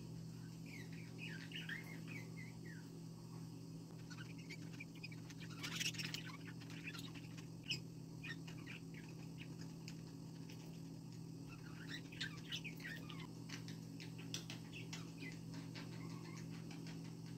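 Two budgerigars chattering softly in quick warbling chirps, in bouts near the start and again about twelve seconds in. Scattered clicks and a short scratchy burst come about six seconds in, over a steady low hum.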